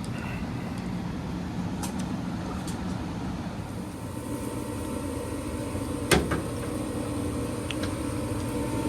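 Payne gas furnace starting its heating cycle: over a steady low hum, the draft inducer motor starts about four seconds in with a steady whine, and a sharp click follows about two seconds later.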